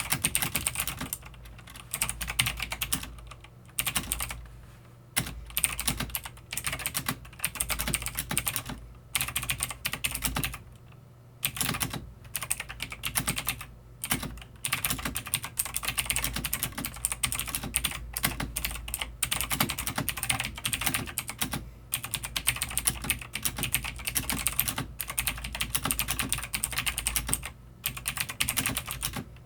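Typing on a cheap Leshp ID303 mechanical keyboard with generic clone Cherry MX Blue clicky switches: rapid keystrokes in quick runs broken by brief pauses.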